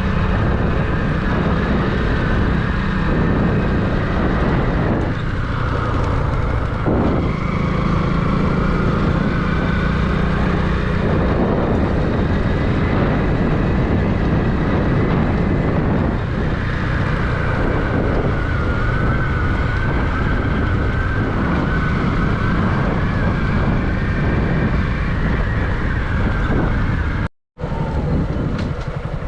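A vehicle running steadily, with dense low rumble and a faint wavering tone. The sound cuts out completely for a moment near the end.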